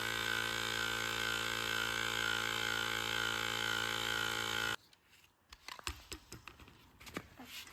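Electric air pump running with a steady motor drone while it inflates a bike inner tube, cutting off abruptly a little under five seconds in, followed by a few faint clicks of handling.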